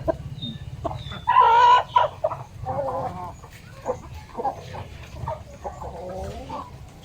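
Chickens clucking and calling in a series of short calls, the loudest a longer, drawn-out call about a second and a half in, over a steady low hum.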